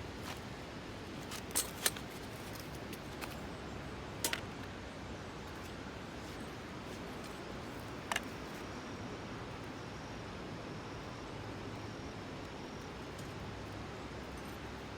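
A handful of short, sharp clicks over a steady low background hiss: two close together about two seconds in, one about four seconds in and one about eight seconds in.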